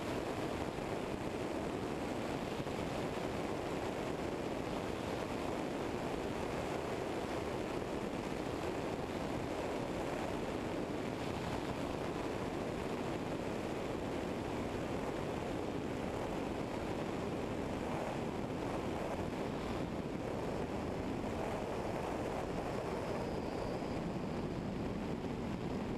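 Steady rush of wind and airflow over a wing-mounted microphone on a Eurostar EV97 ultralight during touchdown and the landing roll, with the engine at idle underneath. The level stays even throughout.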